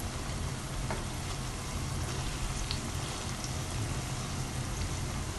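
Potato and onion pakoras sizzling as they deep-fry in hot oil in a pan: a steady hiss with scattered light crackles.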